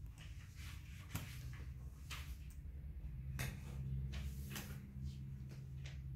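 Cardboard jigsaw puzzle pieces being picked up and set down on a wooden floor: a few light, irregular taps and clicks, over a steady low hum.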